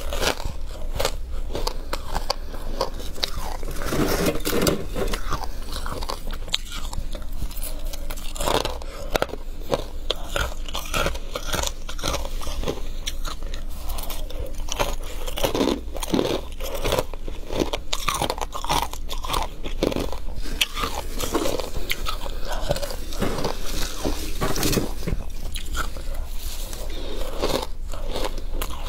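Close-miked biting and chewing of flaky freezer frost: continual irregular crisp crunches.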